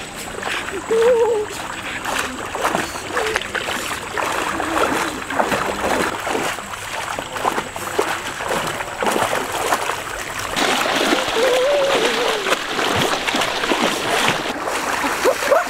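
Water splashing as a person runs through a shallow, muddy stream, with a couple of short vocal calls.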